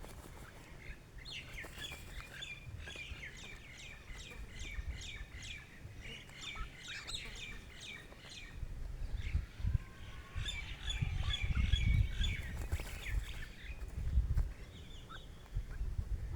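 Birds chirping in quick runs of short, high notes, with a longer run over the first half and a busier burst about ten to thirteen seconds in, over a low rumble.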